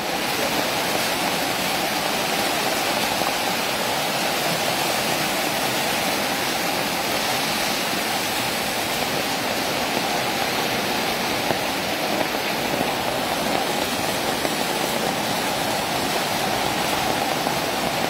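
Muddy floodwater from a landslide pouring across a hill road like a river: a steady, unbroken rush of water.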